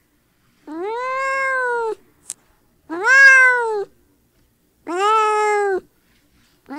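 A cat meowing three times, long drawn-out meows of about a second each that rise and then fall in pitch, with a brief click between the first two and another meow starting at the end.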